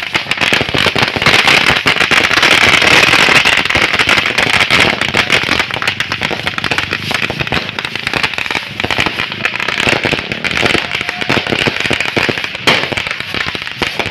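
Fireworks going off in a dense, rapid barrage of crackles and pops, heaviest in the first few seconds, then thinning slightly but carrying on.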